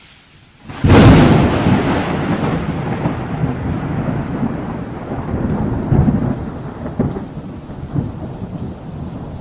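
Thunder: a sudden loud clap about a second in, followed by a long rolling rumble with several further rolls.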